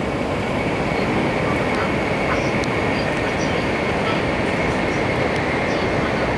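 Steady running noise of an 800 series Shinkansen heard from inside the passenger cabin, with a faint steady high whine through it.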